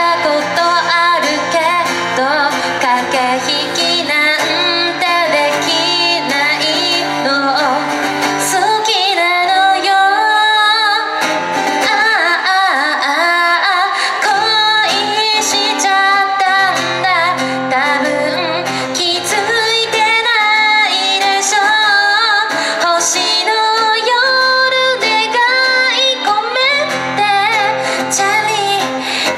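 A woman singing a pop song live into a microphone while strumming an acoustic guitar, her voice carrying the melody over the strummed chords.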